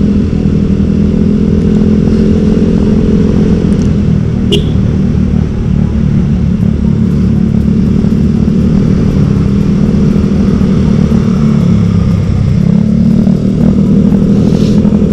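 Motorcycle engine running through an aftermarket TZM Project exhaust while cruising at a steady road speed of about 40 km/h, a continuous drone that eases slightly about two-thirds of the way through. A brief click is heard about four and a half seconds in.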